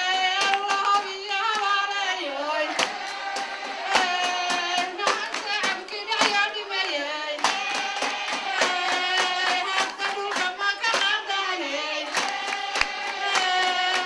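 A song with a high voice singing a gliding melody, over a crowd's rhythmic handclapping in time.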